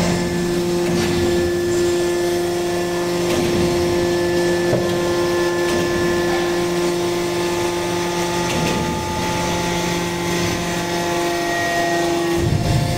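Hydraulic metal-chip briquetting press running: a steady mechanical hum with several held tones, a few faint knocks, and a change in the hum near the end.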